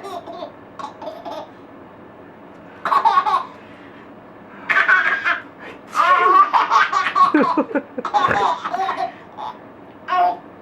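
Baby laughing in a string of bursts, the longest running from about six to nine seconds in.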